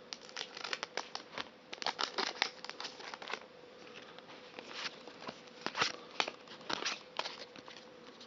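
Foil wrapper of a Pokémon card booster pack crinkling as it is torn open and handled: a string of short, irregular crackles and rustles.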